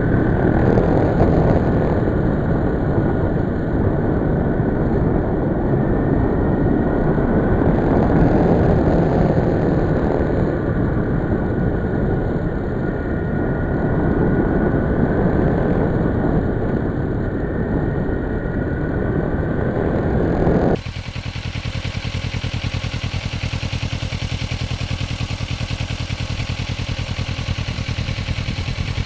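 A motorcycle engine running on the road under a loud, steady rush of noise. About 21 seconds in the sound changes abruptly to a steadier engine note with a fast, even pulse.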